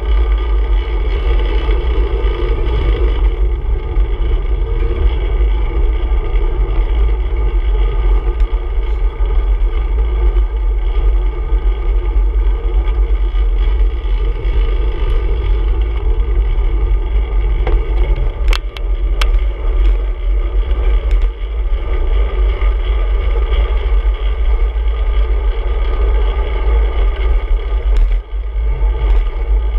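Steady wind rumble and tyre-on-road noise picked up by a handlebar-mounted action camera on a moving road bicycle in traffic. Two sharp clicks about two-thirds of the way in.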